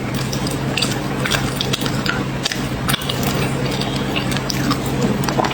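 Close-miked crunchy chewing of chocolate cookie bars: a quick, irregular run of small crackles and crunches over a steady low hum.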